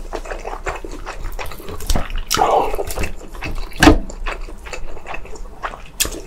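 Close-miked wet chewing and mouth sounds of someone eating Korean-Chinese takeout, with many small sharp clicks, a longer wet stretch a little past the middle and one sharper, louder smack just before the four-second mark.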